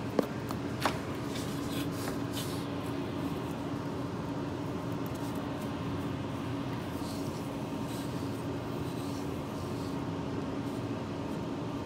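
Steady background hum with one constant low tone, and two short sharp clicks within the first second.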